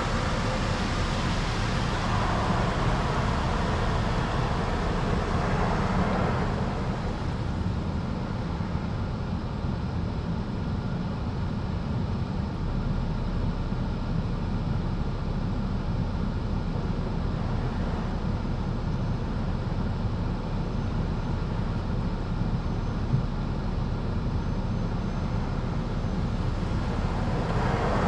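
Automatic car wash heard from inside the car: water spraying and cloth strips washing over the windshield for the first six seconds or so, then a quieter spray over a steady low rumble, with the spraying picking up again near the end.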